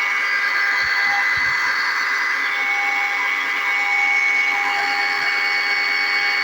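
Powermat 12-inch 21-volt battery chainsaw running steadily, its electric motor and chain giving an even high whine, with a few faint low knocks about a second in.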